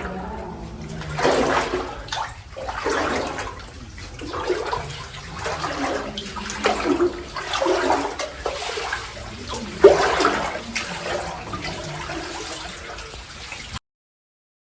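Water sloshing and splashing in uneven surges every second or two, cutting off suddenly near the end.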